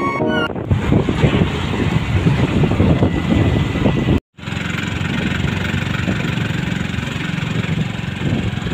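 Engine and road rumble heard from inside a moving vehicle. There is a short break to silence at an edit about four seconds in, after which the rumble carries on. The last of the intro music fades out within the first half-second.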